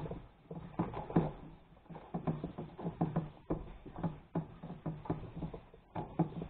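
Irregular small clicks and scrapes of a screwdriver and screw on the washing machine's metal motor mount, about two or three a second. The screw will not catch because its head looks deformed.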